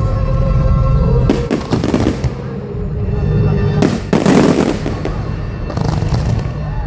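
Fireworks bursting, with loud bangs about a second in, around four seconds in and near six seconds, over music with held notes.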